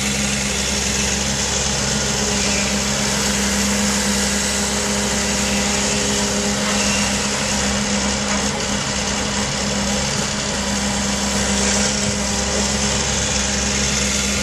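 Diesel engine of a Doosan amphibious excavator running with a steady, unbroken hum.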